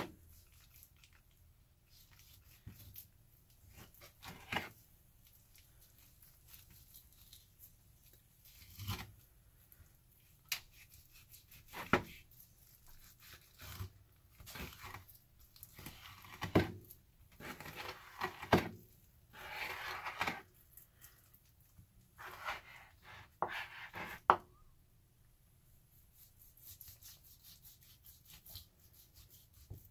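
A knife slicing through raw ribeye on a plastic cutting board: short, uneven cutting and scraping strokes with a few sharp knocks of the blade or meat on the board. The strokes thin out in the last few seconds.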